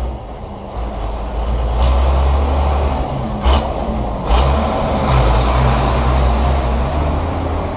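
Tractor and baler working, a steady low rumble with two sharp knocks about three and a half and four and a quarter seconds in.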